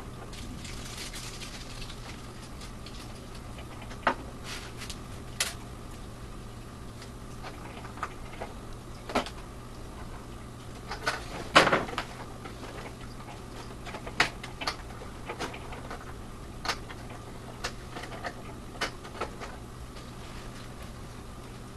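Scattered light clicks and knocks from hands working on a foam RC model jet and its small parts on a tabletop, the loudest cluster about twelve seconds in, over a steady low hum.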